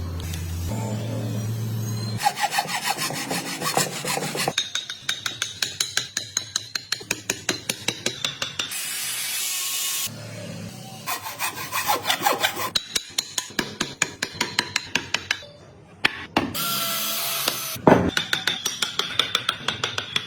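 Hand tools working wood in several short cut-together clips: quick rhythmic rasping strokes, broken by a few brief stretches of steady hissing.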